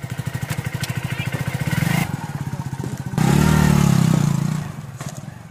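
Hero HF Deluxe's single-cylinder four-stroke engine running with a quick, even firing beat, then revved up about three seconds in and held for a moment before dropping back.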